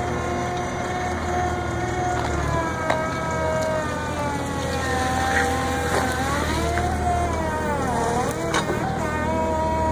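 Electric drive and hydraulic pump of a battery-powered Sherpa mini loader whining over a low steady hum as it carries a concrete slab. The whine holds steady at first, then its pitch wavers, dipping and rising in the second half as the machine manoeuvres and starts to work the forks, with a couple of sharp clicks.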